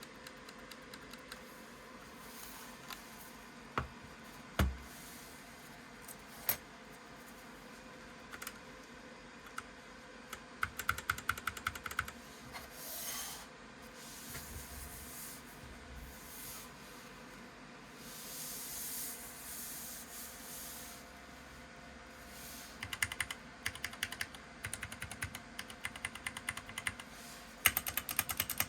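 Typing on a DREVO Seer PRO Mini mechanical keyboard with Gateron Brown switches: a few single key clicks at first, then quick runs of key presses about ten seconds in and again through the last several seconds. Softer rubbing sounds come between the runs.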